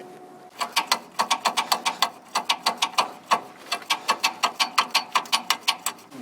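Ratcheting wrench clicking rapidly, about five clicks a second with a couple of brief pauses, as a fitting is worked loose.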